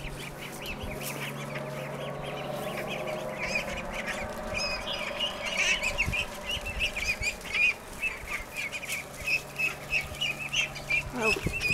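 A group of young ducklings peeping: a steady stream of short, high calls that grows busier about halfway through.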